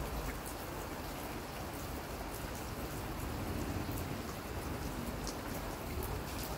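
Steady rain, with scattered single drops ticking sharply on a hard surface.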